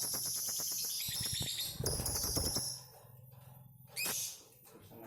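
Lovebird 'ngekek': a long, rapid, high-pitched chattering trill that stops about three seconds in, followed by a short call about a second later.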